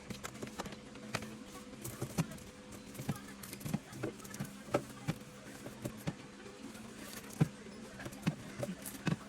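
Irregular light knocks and clicks of containers and packages being set down and arranged on refrigerator shelves, over a steady low hum.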